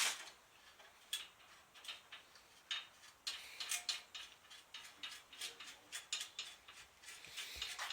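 Hand ratchet wrench clicking in short, irregular strokes, a few clicks a second, as the hub's mounting bolts are worked in.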